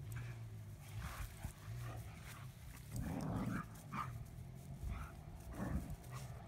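Two dogs play-fighting, making short vocal sounds on and off, loudest about three seconds in.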